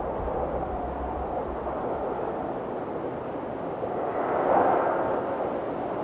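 Storm-at-sea sound: a steady rush of wind and water, with a deep low rumble in the first two seconds and a louder surge about four and a half seconds in.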